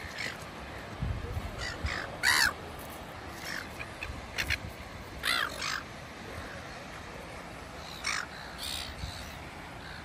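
Silver gulls calling: short harsh squawks scattered through, about nine in all, the loudest about two and a half seconds in.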